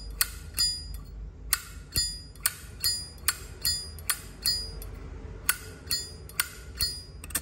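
Zippo lighter's hinged steel lid flipped open and snapped shut over and over, a crisp metallic click with a bright ring about two to three times a second, showing off the lighter's firm, clean-sounding action.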